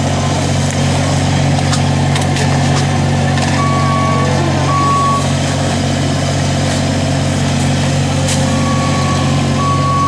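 Motorized street litter-vacuum vehicle running steadily, its engine and suction fan giving a loud even drone. A warning beeper on the machine sounds two beeps about four seconds in and two more near the end, with a few sharp clicks over the drone.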